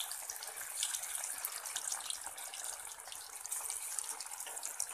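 Batter-coated anchovies deep-frying in hot oil in a kadai: a steady sizzle with many small crackles and spits as more pieces are dropped into the oil.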